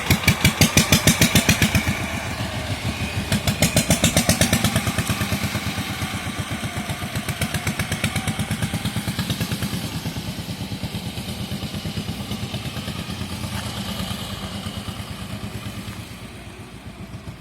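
Diesel engine of a three-wheeled motor vehicle running with a rapid, even chug. It gets louder near the start and again about four seconds in, then gradually fades.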